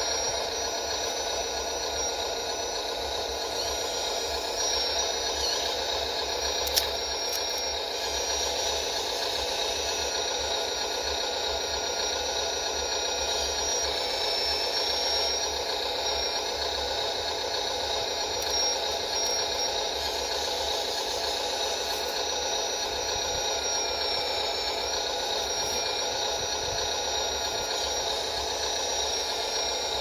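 Scale RC excavator working: its motors give a steady high mechanical whine over a low hum, with a sharp click about seven seconds in.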